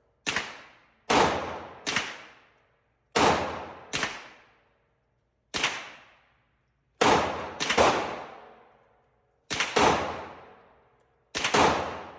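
Gunshots fired at an irregular pace, about a dozen in all, several in quick pairs, each ringing out in a long echo that fades before the next.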